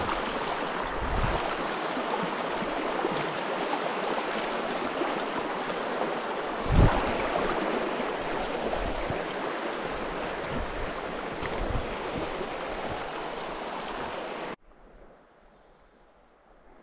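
Steady rush of a flowing stream, with a few low thumps, the loudest about seven seconds in. The water sound cuts off suddenly near the end.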